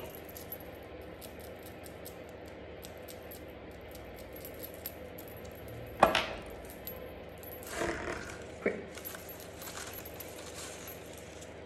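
Light handling of paper and cardstock, with small metallic clicks and clinks from metal bangles. There is a sharp click about six seconds in and a short cluster of taps and rustles a little later.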